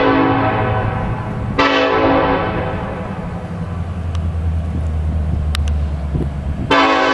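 Union Pacific SD70ACe diesel locomotive's air horn blowing for a grade crossing. A long blast tails off about a second in, a short blast follows, and a loud long blast starts near the end. A low rumble runs underneath between blasts.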